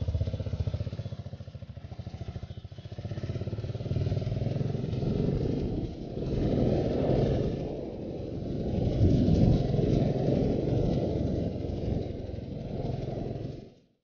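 Royal Enfield Continental GT's 535 cc single-cylinder engine running at low revs with a slow, uneven pulse, then pulling away and gaining speed as wind noise builds. The sound fades out just before the end.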